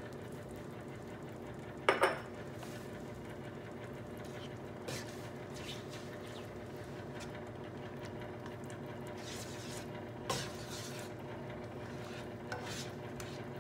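A spatula stirring thick marinara sauce through a simmering mixture in a nonstick sauté pan, with scraping and light clicks against the pan, over a steady hum. A sharp double knock about two seconds in is the loudest sound, and another knock comes near the ten-second mark.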